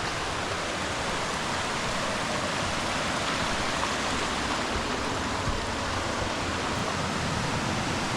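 Rushing river water at close range, a steady, even rush of white water.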